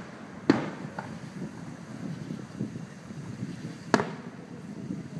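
Aerial firework shells bursting: a sharp bang about half a second in, a faint pop about a second in, and another sharp bang near four seconds, each followed by a short echoing tail.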